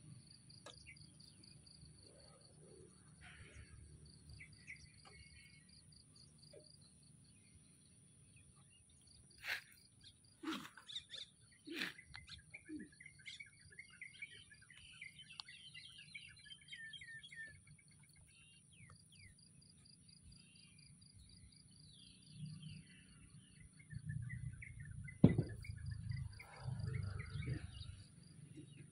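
Outdoor ambience: an insect trilling steadily and birds chirping. A few sharp knocks stand out, the loudest about 25 seconds in, with a low rumble over the last few seconds.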